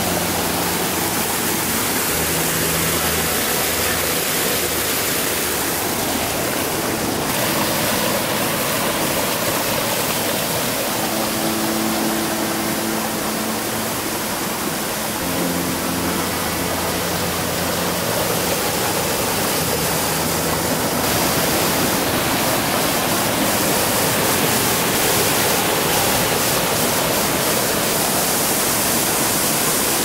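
Water rushing and splashing steadily over rocks at a small waterfall and the stream below it. The tone of the rush shifts twice along the way.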